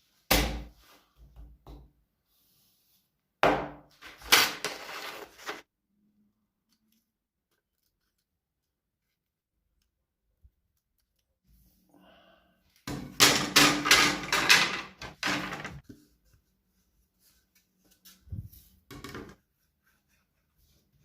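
Several short bursts of woodworking noise, knocks and scraping on wood, separated by silent gaps.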